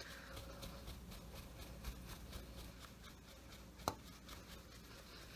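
Faint, repeated soft rustling of a hand fanning close to the microphone, with a single sharp click about four seconds in.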